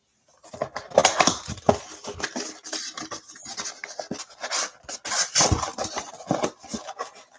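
Cardboard trading-card box being opened by hand: irregular scraping, rubbing and crinkling of its flaps and wrapping, broken by many sharp clicks and small knocks. It starts about a third of a second in.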